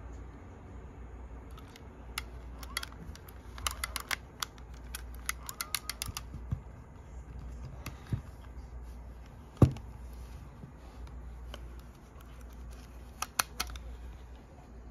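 Small plastic and metal clicks from a Sony EX70 cassette Walkman being handled and its side buttons pressed: a quick run of clicks, one louder thump about two-thirds of the way through, then a few clicks near the end as the cassette lid is opened. A low steady hum runs underneath.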